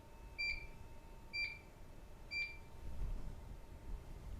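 DMP 7800 Series touchscreen alarm keypad giving short key-press beeps, three of them about a second apart, as a code is entered on the keyboard screen to disarm the system.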